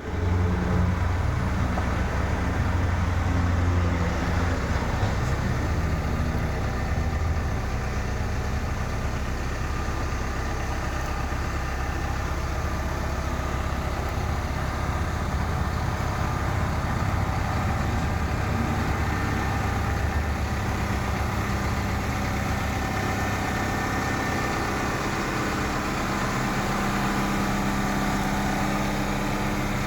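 Diesel engine of a CAT 312E-2 hydraulic excavator running steadily at idle.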